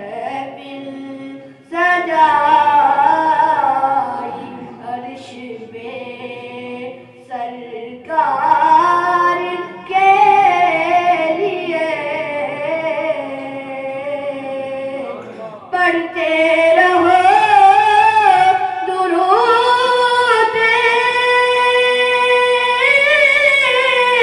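A boy's solo voice singing an Urdu naat in long, wavering, held phrases, with short breaks between lines. The melody climbs higher in the later lines.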